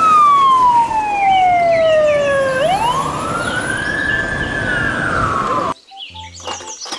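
Fire engine siren wailing: one long tone slides slowly down, sweeps back up and starts down again, with quicker chirping tones higher up. It cuts off sharply near the end, leaving fainter clicks and chirps.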